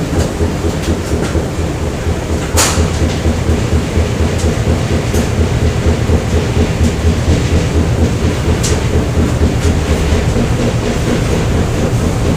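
Factory machinery ambience: a steady, fluttering low rumble of running machines, with a few sharp clicks over it, the loudest about two and a half seconds in.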